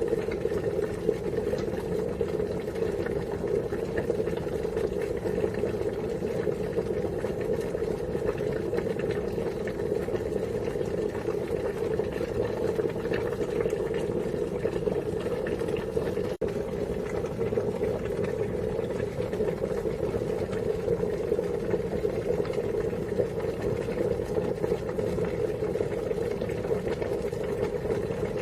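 Water boiling hard in a pot: a steady, continuous bubbling rumble, broken by a split-second gap a little past halfway.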